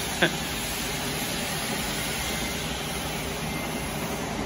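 Mug-baking tunnel furnace running: a steady, even hum and rush from its fans and mesh conveyor, with one short sharp click about a quarter second in.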